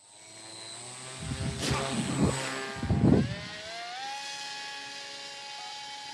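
RC paramotor trike's motor and propeller running up for takeoff: a whine that rises in pitch about four seconds in, then holds steady at high power. Before that, a few loud gusty rumbles of wind noise on the microphone are the loudest sounds.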